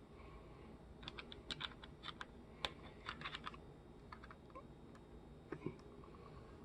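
Faint, irregular small clicks and taps in loose clusters as the refrigerator's door mullion hinge and its bent spring are handled and worked into place.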